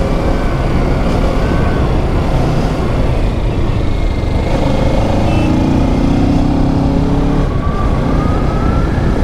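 Kawasaki Ninja 650's parallel-twin engine running under way, its pitch gliding up and down with the throttle, over a steady rush of noise.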